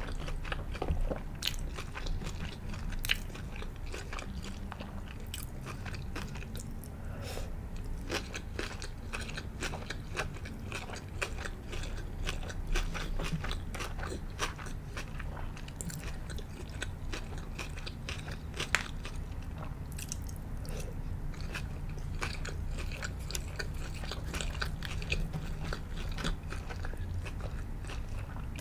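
Close-miked eating of sushi: biting and chewing with many sharp, crunchy clicks, over a steady low hum.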